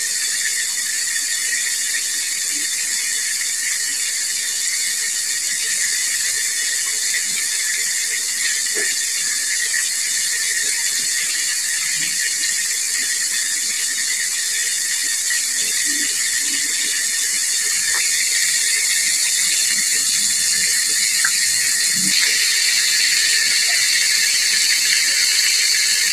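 A whole chicken deep-frying in hot oil: a steady high sizzle with occasional faint crackles, getting slightly louder in the later part.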